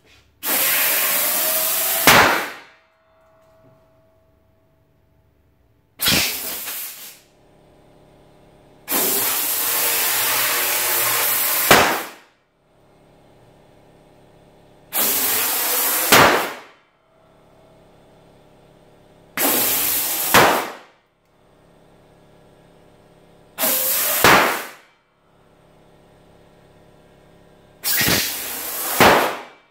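Compressed air hissing from a compressor hose into rubber balloons, one after another, each fill lasting one to three seconds and ending in a sharp pop as the balloon bursts. This happens about seven times, roughly every four seconds.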